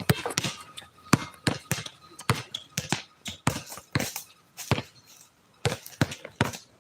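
A basketball bouncing repeatedly on an outdoor court. The many sharp bounces come at an uneven pace, with a short lull about five seconds in.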